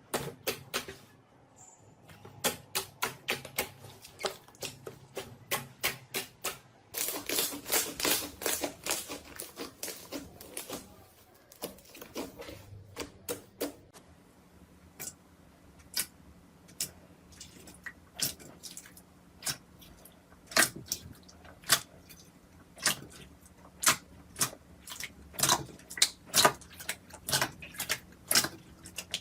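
Slime being pressed and poked by hand, giving a long series of sharp clicks and pops that come thickest about seven to ten seconds in and then settle into a slower, fairly even run of single clicks.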